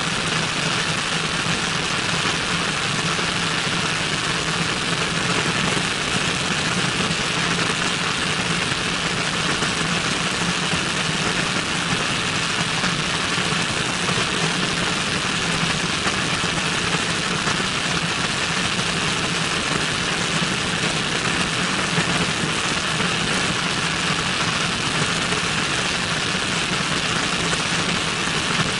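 Cessna 172N's four-cylinder Lycoming engine and propeller running steadily in flight, with heavy wind rush over an outside-mounted microphone. The sound holds even, with no change in power.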